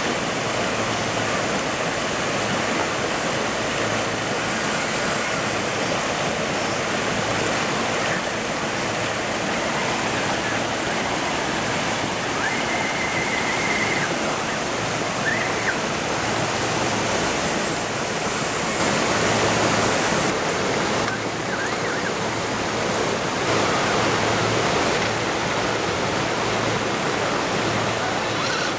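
Shallow creek water rushing steadily over rock ledges and riffles.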